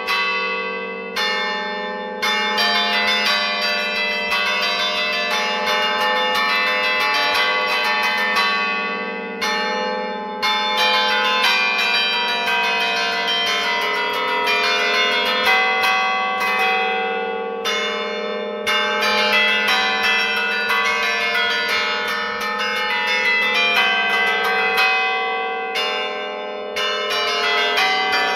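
Tower church bells played by hand from a lever keyboard that pulls the clappers, in a rapid run of strikes forming a tune, the bells ringing on over one another. The playing stops briefly four times between phrases.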